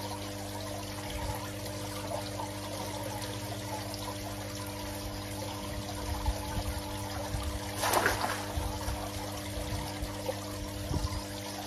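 Steady splashing of water pouring into a koi pond from an outlet, under a steady low hum. About eight seconds in there is a brief splash, with a few knocks around it, as a basket of water lilies is lowered into the pond on a garden rake.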